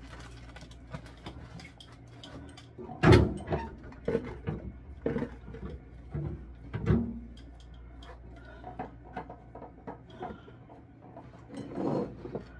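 Knocks and clatter of things being handled in an open refrigerator as it is cleaned out, over a low steady hum. There is a sharp knock about three seconds in, a run of lighter knocks over the next few seconds, and a cluster of them near the end.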